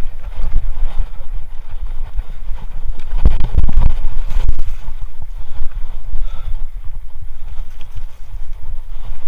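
Mountain bike (Kona Honzo) riding over rough trail: a continuous low rumble with rattling knocks and wind buffeting the microphone, with a heavier run of jolts about three seconds in.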